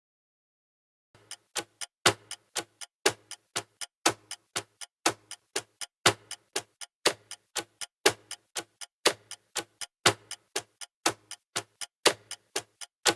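Clock-style ticking sound effect, about four ticks a second with a louder tick each second, starting about a second in.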